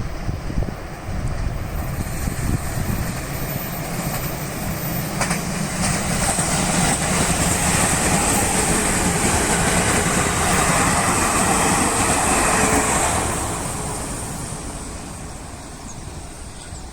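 A train passing over a level crossing: the running noise of wheels on rail builds about six seconds in, stays loud for several seconds with a thin high whine over it, then fades away near the end.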